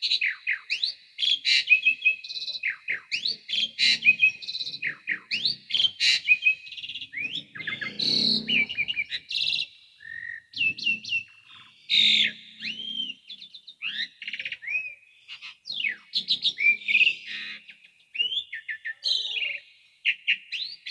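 Asian pied starling (jalak suren) singing continuously in a rapid, varied medley of whistles, slurred gliding notes, chatters and clicks, broken by short pauses. A harsher, rasping passage comes about eight seconds in.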